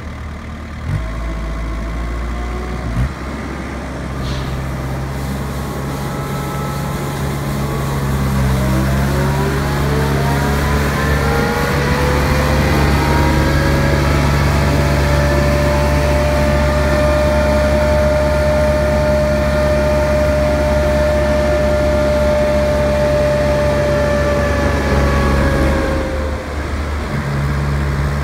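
Tennant Green Machines 636 HS compact street sweeper running with a steady low engine drone. About a third of the way in, a whine rises in pitch over several seconds as the sweeping system spins up. It holds steady, then dies away a couple of seconds before the end.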